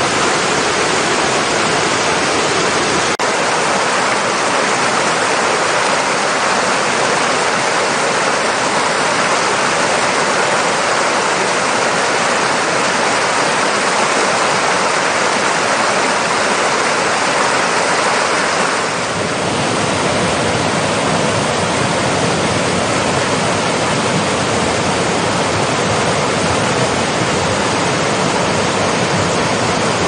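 Steady rush of falling, splashing water, with one faint click about three seconds in. A little past halfway it shifts to a fuller, deeper rush.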